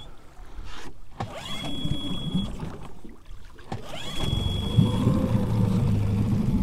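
Small tiller outboard motor being started: a try about a second in fails, and the next, about four seconds in, catches. The motor then runs steadily at low speed.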